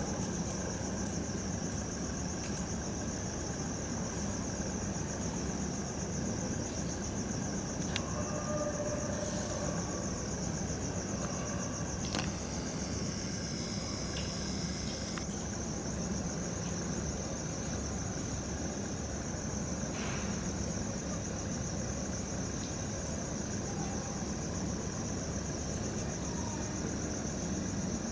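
Crickets trilling continuously in a steady, high-pitched chorus over a low, steady background rumble.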